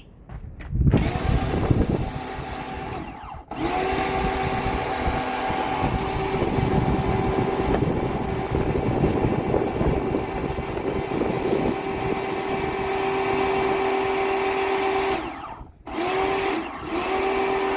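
AVA Go P40 electric pressure washer running with its motor hum and spray hiss, stopping and starting as the trigger is released and squeezed: a short run, a long steady run that cuts off, then two brief bursts near the end.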